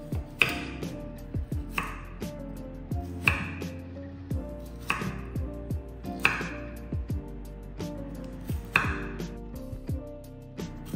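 Chef's knife cutting a carrot on a wooden chopping board, each cut landing with a sharp knock on the board about every second and a half, with fainter taps between. Background music plays underneath.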